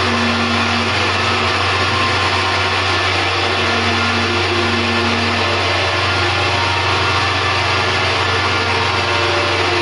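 Live electronic noise played on a keyboard through a table of effects pedals: a dense, steady wall of noise over a constant low hum, with a few faint held tones surfacing briefly.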